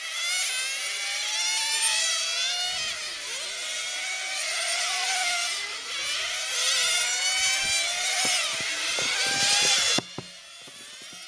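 Several 1/10-scale nitro RC touring cars' small glow engines running at high revs, their whine rising and falling in pitch as they accelerate and lift off round the track. The sound drops abruptly to much quieter near the end.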